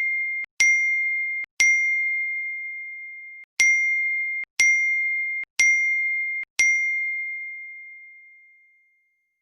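A high bell-like ding struck repeatedly on the same note, about once a second with a longer pause after the second strike. Each ring is cut off sharply just before the next one. The last ring fades out over about two seconds.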